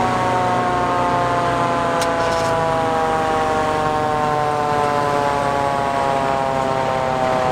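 Fire engine siren sounding on a Code 3 response, its pitch falling slowly and steadily, over the truck's engine running. A short click about two seconds in.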